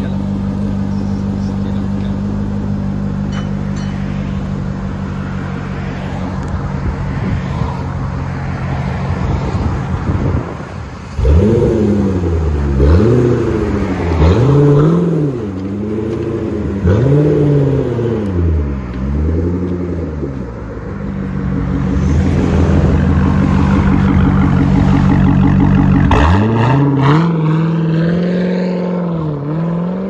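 Car engine and exhaust idling with a steady note, then revved several times in quick rising-and-falling blips, settling back to idle. Near the end the revs climb steadily.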